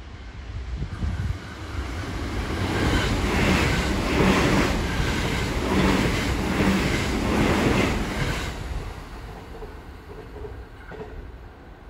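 Limited express electric train passing through the station: a rumble builds, then a steady run of rhythmic wheel clatter over the rail joints for about five seconds, fading away as the train moves off.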